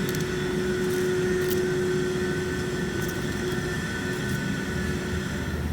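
Factory machinery running with a steady hum and a held tone that fades out near the end, with a few light clicks.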